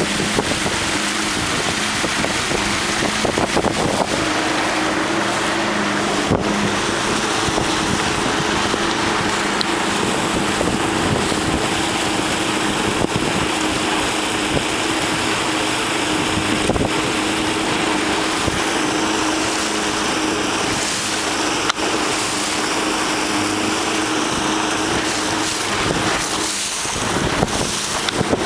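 Motorboat engine running at a steady speed underway, with wind buffeting the microphone.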